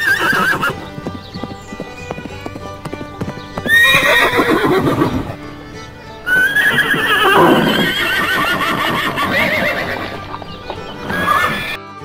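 Horse whinnying four times: quavering neighs that fall in pitch, short ones at the start and near the end and two long ones in between, over background music.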